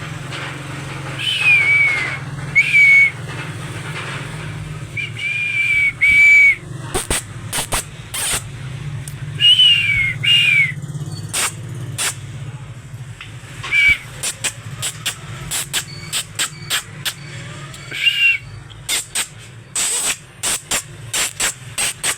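Parrot whistling in short pitched notes, several of them sliding down in pitch, repeated at intervals, with many sharp clicks in between over a steady low hum.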